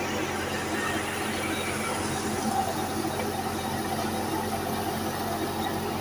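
Tractor-driven wheat thresher running steadily: a continuous mechanical drone with a steady low engine hum underneath.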